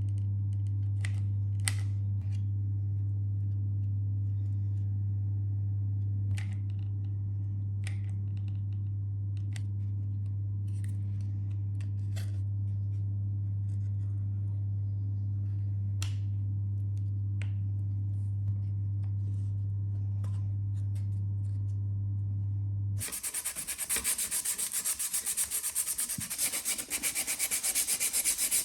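A steady low electrical hum with a few light clicks. About 23 seconds in the hum stops and hand sanding takes over: sandpaper rubbed in quick strokes over a 3D-printed plastic model part to smooth its print lines.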